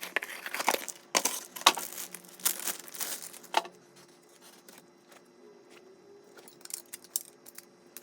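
Hard drive and its converter tray being handled: a quick run of plastic and metal clicks, scrapes and rattles for the first three or four seconds, then a few light clicks near the end.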